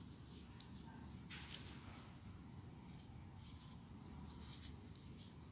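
Folded paper units of a 3D origami model rustling and scraping as they are handled and pushed together: faint, scattered scratchy crinkles, the clearest about a second and a half in and again near the end.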